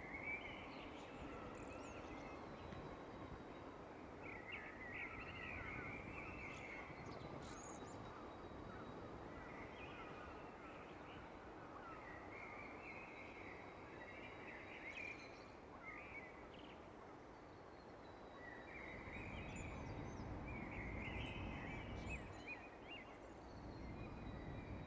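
Birds singing at dawn in repeated short, chirping and warbling phrases every second or two, faint over a steady background hiss and low rumble. The rumble swells for a few seconds near the end.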